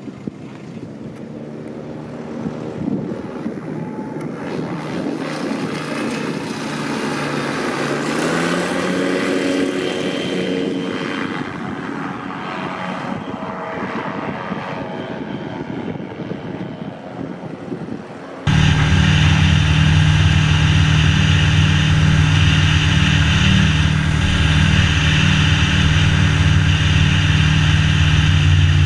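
Rotax 912 four-cylinder four-stroke engine and three-bladed propeller of an ultralight trike, growing louder and rising in pitch. After a sudden cut about two-thirds of the way in, it runs much louder and steady.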